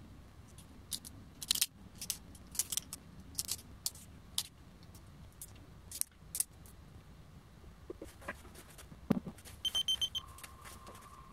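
Cured resin 3D-print supports being snapped off the print by hand: a string of sharp little clicks and snaps. Near the end, a quick run of beeps as the buttons of an Elegoo Mercury Plus wash and cure station are pressed, followed by a steady tone.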